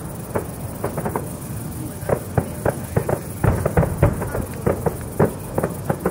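Fireworks bursting in a rapid, irregular series of sharp bangs and cracks, several a second.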